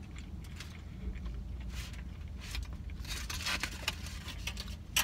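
Eating a burrito: soft chewing with small clicks, and a brief rustle of its wrapper about three seconds in, over a steady low hum.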